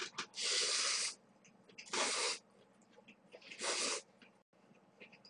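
A person slurping cold buckwheat noodles, three loud slurps about a second and a half apart.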